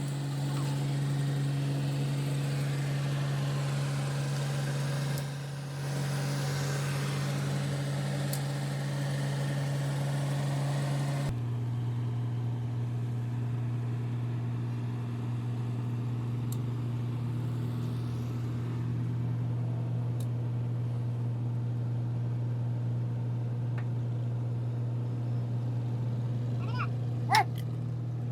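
A motor running steadily with an even hum; about eleven seconds in the sound changes abruptly and the hum drops slightly in pitch. A brief high squeak comes near the end.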